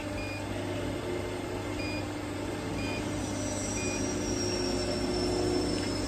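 Four short beeps from a CNC pipe bender's touchscreen control panel as its keys are tapped, spaced unevenly over the first four seconds, over a steady low machine hum.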